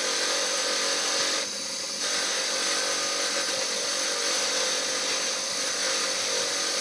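Motor-driven wire wheel running with a steady whine while a freshly soldered brass fitting is held against the spinning wire brush to clean off the flux, with a brief drop in level about a second and a half in.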